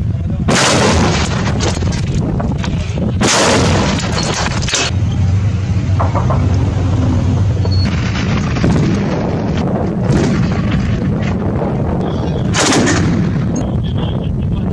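Artillery and gunfire in the open desert: loud shots about half a second in, at about three seconds and near the end, with smaller reports between. Under them runs a steady low rumble.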